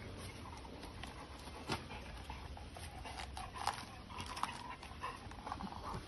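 Rottweiler gnawing at a partly husked green coconut held in a person's hand: a few sharp crunches of teeth on the husk.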